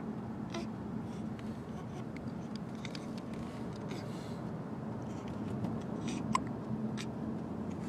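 A newborn baby's hiccups: faint rustling of cloth over steady room hiss, then one short sharp hiccup about six seconds in and a fainter click about a second later.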